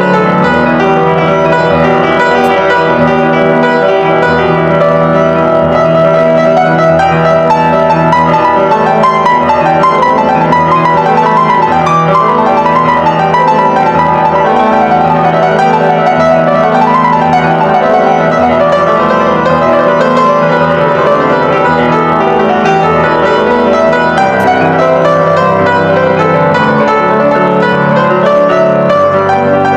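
Live piano music: many notes sounding together and in quick succession at an even level.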